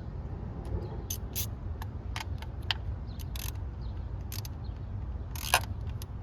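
Irregular sharp metallic clicks and clinks, about ten spread unevenly, the loudest one near the end, over a steady low rumble. They are typical of hand tools on a car engine during an ignition coil replacement.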